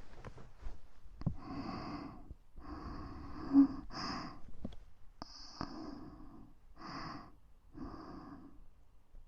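A person breathing slowly and audibly close to the microphone in a string of soft, airy breaths, about one every second or so. Small sharp clicks fall between them, with one louder moment near the middle.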